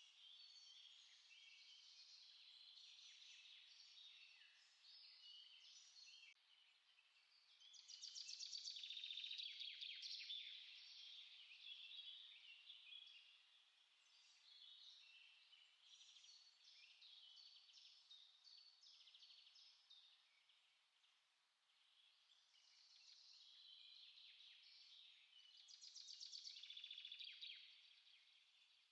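Small songbirds singing and chirping together in a dense chorus, with louder rapid trills about eight seconds in and again near the end.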